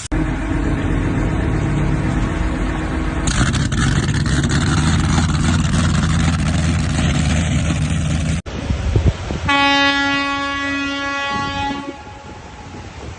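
A motor running steadily under a rush of wind or water noise. After an abrupt cut comes one loud, steady horn blast of about two and a half seconds.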